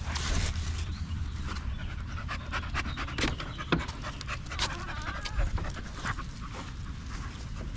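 A bully-breed dog panting, with scattered sharp clicks and a steady low rumble underneath.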